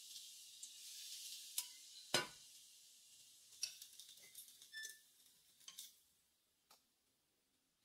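Hot oil sizzling on a bowl of raw minced garlic, dying away over the first few seconds. About two seconds in comes a loud knock, likely the metal saucepan being set on the glass stovetop, followed by a few light clinks and taps.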